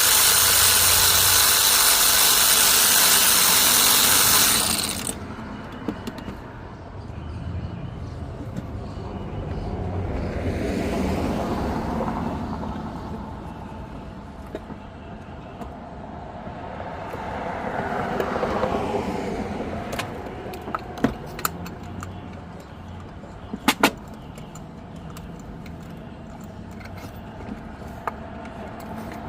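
A loud steady hiss that cuts off abruptly about five seconds in, then two cars passing by, each swelling and fading over a few seconds, with scattered light metallic clicks of hand tools.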